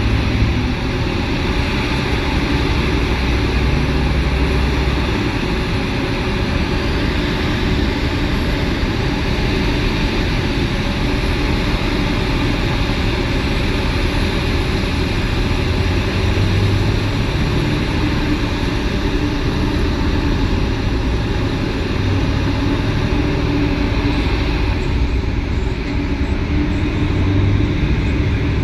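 Heavy mining machinery running: the steady, dense low drone of a large mining excavator and haul truck's diesel engines, with no distinct impacts standing out.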